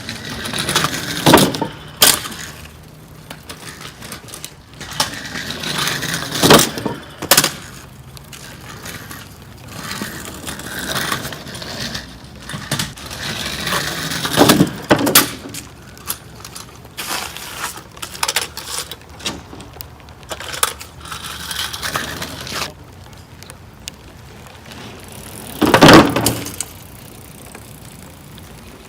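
Bicycle tyres rolling up and over a homemade jump ramp, a thin wooden plank loosely propped on stacked bricks. Several sharp clattering knocks come as the board rattles on the bricks and the bike lands, the loudest near the end.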